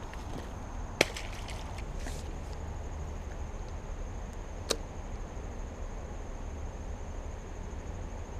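Baitcasting rod and reel handled during a cast: a sharp click about a second in, followed by a short run of lighter ticks, then a second sharp click a little before five seconds.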